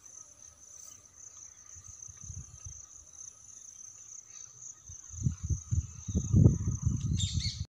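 Insects trilling steadily at a high pitch. In the last few seconds, louder irregular low rumbling on the microphone covers it.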